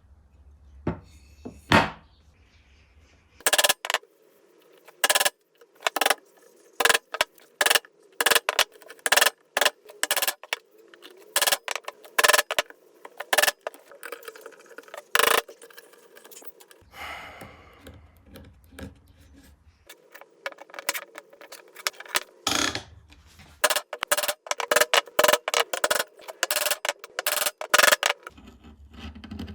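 Sharp, irregular knocks and clicks of hand tools on wood, sometimes several a second, with short pauses between runs.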